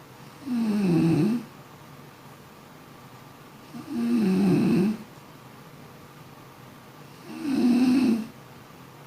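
A sleeping person snoring: three snores, each about a second long, coming roughly every three and a half seconds.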